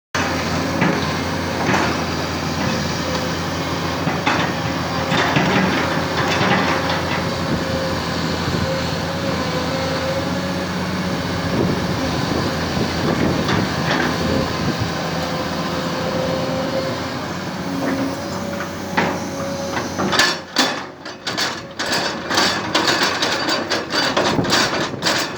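Excavator's diesel engine running steadily, with a held, slightly wavering whine above its hum. For the last few seconds the steady sound breaks up into short, uneven sounds.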